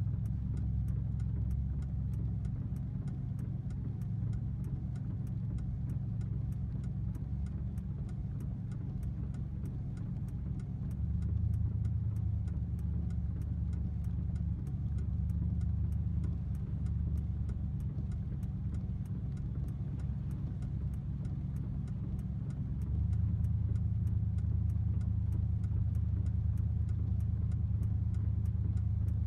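Engine and road noise heard inside a vehicle's cab as it drives through shallow floodwater: a steady low rumble that grows louder about eleven seconds in and again near the end.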